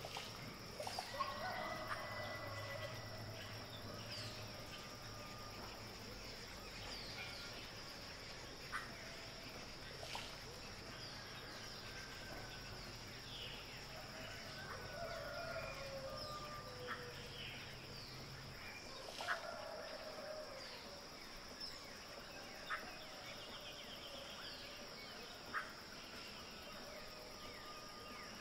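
Woodland ambience: assorted birds calling and chirping in short, often falling notes over a steady high-pitched insect drone. A low hum underneath stops about two-thirds of the way through.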